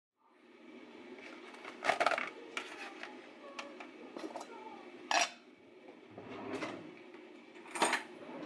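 A metal pot, its lid and plastic food containers clattering on a kitchen counter, with several sharp clanks; the loudest come about two, five and eight seconds in.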